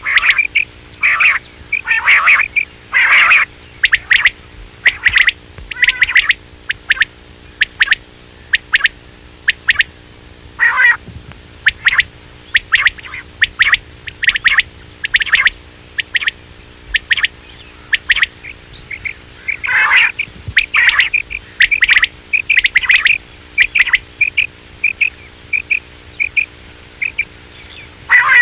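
Quail calling: a run of short, high chirps about one or two a second, with a few louder, longer calls among them.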